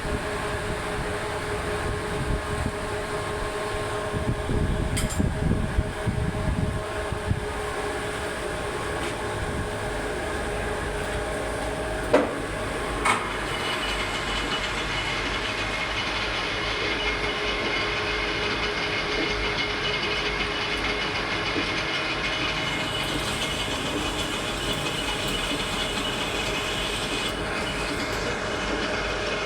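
A machine running steadily with a constant whining hum, with a brief low rumble early on and two short knocks about halfway.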